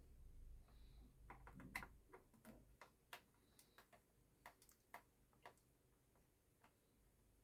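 Faint, irregular small clicks and taps of a screwdriver and small screws being worked on a laptop's plastic underside, coming thick at first and then more sparsely.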